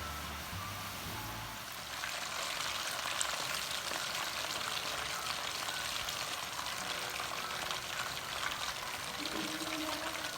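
Battered fish or fries frying in hot oil: a dense crackling sizzle that comes in about two seconds in, over faint background music.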